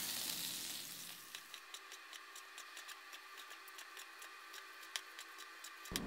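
Pork neck searing in an oiled nonstick pan: a faint sizzle with many small crackling pops, dying down over the first two seconds.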